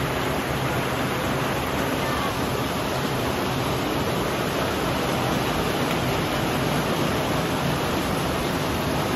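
Steady rain falling and pouring off roof eaves, a continuous even hiss.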